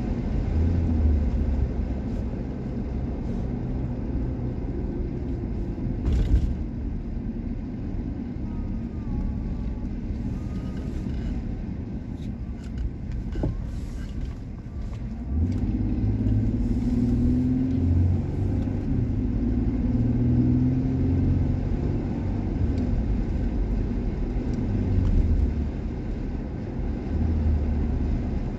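Car engine and road noise heard from inside the cabin while driving, a steady low rumble. It eases for a few seconds in the middle, then grows louder again from about halfway through; a single knock sounds about six seconds in.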